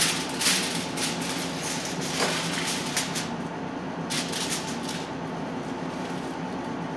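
Aluminium foil crinkling and rustling as sheets are handled and folded on a cutting board, a dense run of crackles that thins out after about three seconds, with one more short burst a little after four seconds. A steady low hum runs underneath.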